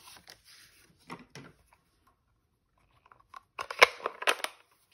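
Light rustles, then a quick series of sharp clicks and snaps as stamping supplies are handled and set down on a desk.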